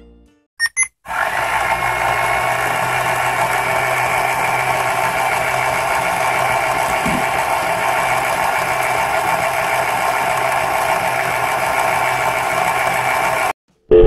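Battery-operated toy front-loading washing machine: two short electronic beeps from its button about half a second in, then its small motor running steadily as the drum turns with water inside, cutting off suddenly near the end.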